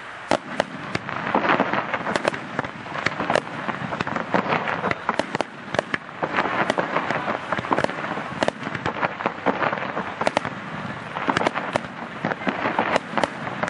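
Aerial fireworks display: shells bursting in quick succession, sharp bangs several times a second over a continuous wash of noise, growing busier about a second in.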